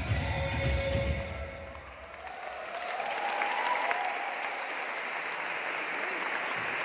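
Dance music with a strong bass beat ends about a second and a half in, and an audience breaks into steady applause.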